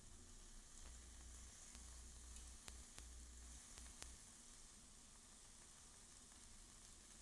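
Marinated pork bulgogi sizzling faintly on a hot indoor grill plate, with a few sharp clicks of metal tongs on the grate a little before the middle as another piece is laid down.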